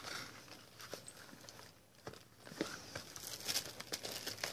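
Gift packaging rustling and crinkling as a small cardboard jewellery box is handled and pulled out from among wrapping, with light knocks of the box. There is a short lull about two seconds in, then the rustling picks up again.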